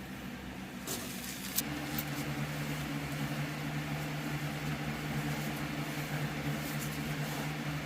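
A vacuum switches on after a few clicks about a second and a half in, then runs with a steady low hum.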